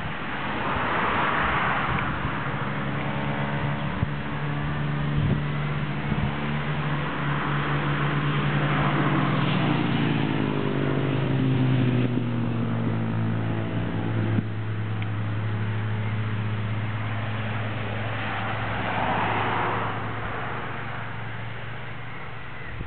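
Road traffic: a motor vehicle engine hums steadily and drops in pitch partway through, while cars pass by on the road about three times.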